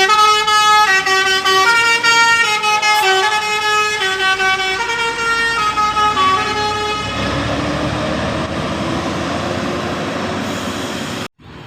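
A West Sumatran bus's basuri musical air horn plays a loud tune of short stepped notes for about seven seconds. After the tune, the bus's engine and passing noise go on steadily until the sound cuts off abruptly near the end.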